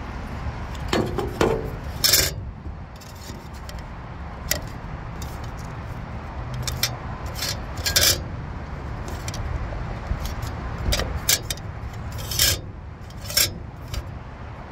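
Metal 8-inch evaporator fan blade being handled, set down and bent by hand on a metal toolbox lid. Irregular scrapes and sharp clinks, the loudest about two, eight and twelve and a half seconds in, over a steady low rumble.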